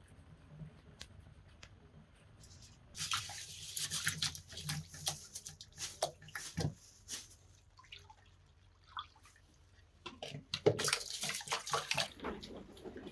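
Water splashing and pouring in two spells, a few seconds each, mixed with small knocks and clicks.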